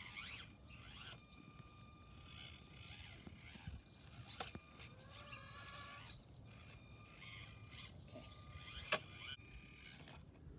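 Axial SCX24 micro crawler's small electric motor whining faintly as it crawls, its pitch shifting now and then, with the tires scraping and clicking over rock. One sharp click shortly before the end.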